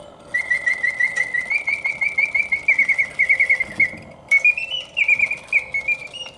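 Antique Bontems singing bird automaton's bellows-blown piston whistle singing: a high whistled warble of quick repeated notes that step and swoop up and down, broken by two short pauses, one just after the start and one a little past halfway.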